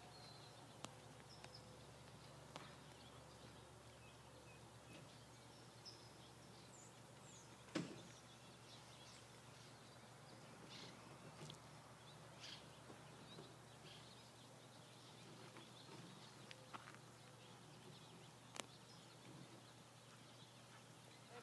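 Near silence: faint steady background hiss with a few brief bird chirps and several small clicks, the loudest click about eight seconds in.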